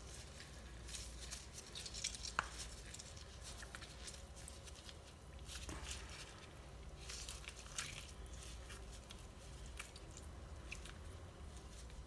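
A lemon squeezed by a gloved hand through a small mesh strainer: faint wet squishing and crackling of the peel and pulp, with a few light clicks.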